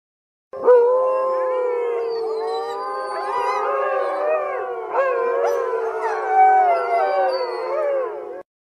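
Several dogs howling together in a chorus of overlapping, wavering howls. It starts about half a second in and cuts off suddenly near the end.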